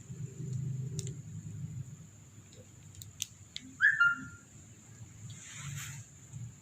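A short, high-pitched chirp with a falling tail about four seconds in, the loudest sound here, over a faint low murmur and a few light clicks; a brief breathy hiss follows near the end.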